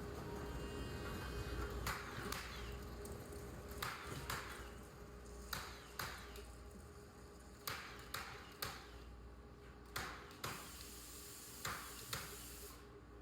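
Nails being driven into wooden pallet boards: sharp strikes in pairs about half a second apart, a new pair every two seconds or so, each with a short ring.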